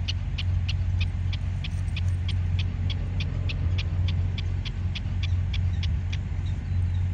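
Prairie dog giving a rapid string of sharp alarm chirps, about three to four a second without a break, calling at a dog close by. A steady low rumble runs underneath.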